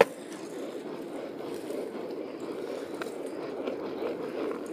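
Steady rolling noise of small wheels running over pavement, with a sharp click at the start.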